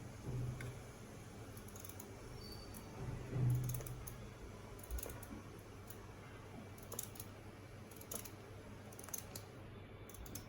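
Scattered light clicks and taps, with a short low hum twice in the first four seconds.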